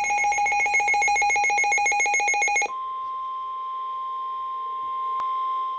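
Emergency alert tones signalling a severe thunderstorm warning. A fast-pulsing electronic beep sounds for about the first two and a half seconds, then switches to a steady single-pitched attention tone, the weather-radio warning alarm, with one brief click near the end.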